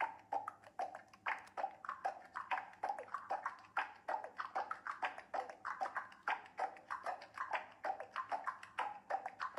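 A quick, steady series of light pitched taps, about six a second.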